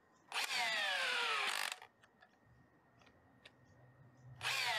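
Milwaukee cordless SDS rotary hammer driving a large lag screw into a tree stump through a torque meter adapter. It runs in two short bursts of about a second and a half, the second starting near the end, and its motor whine falls in pitch during each burst.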